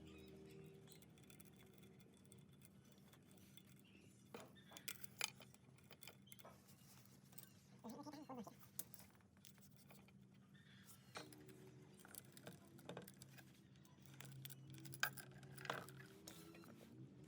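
Faint scattered clicks and taps of small parts and tools being handled at a workbench, over a low steady hum, with a brief pitched sound about eight seconds in.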